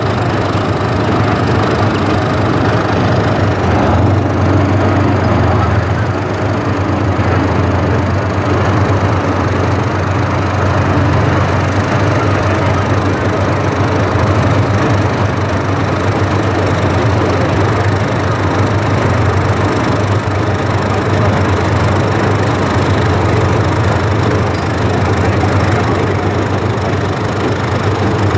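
WZT-2 armoured recovery vehicle on the move, its T-55-based V12 diesel engine running steadily at a loud, deep, even level, with the noise of its tracks over soft ground.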